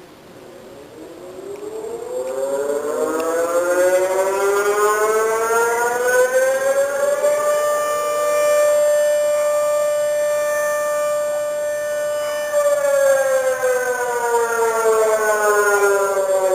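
Tsunami warning siren sounding one long wail. Its pitch climbs for about six seconds, holds steady for about five, then falls near the end.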